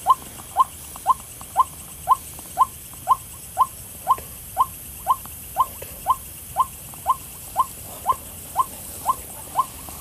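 White-breasted waterhen (ruak-ruak) call, a short note repeated evenly about twice a second, played from a loudspeaker as a lure to draw the birds in at night.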